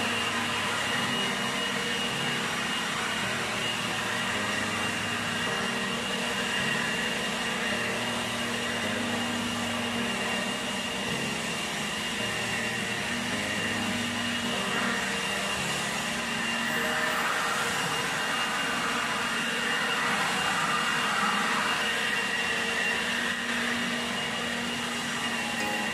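Handheld leaf blower running steadily, a rush of air with a constant high whine.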